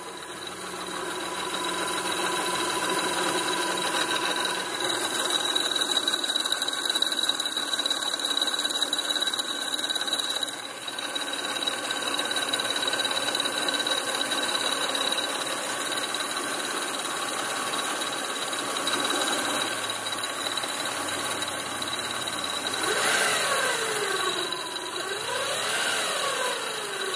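Toyota Solara V6 engine running, with a light metallic clanking and a steady high-pitched whine from the accessory side of the engine bay. The engine speed rises and falls a few times near the end, and the clanking follows engine speed; the owner suspects it comes from the overhead cam but can't tell.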